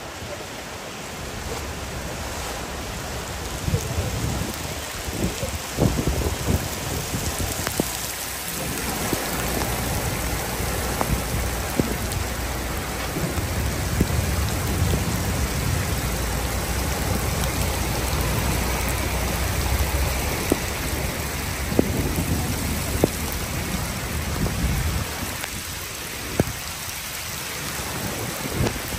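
Heavy downpour pouring onto a flooded street, with scattered sharp taps of drops. A low rumble swells through the middle and fades again.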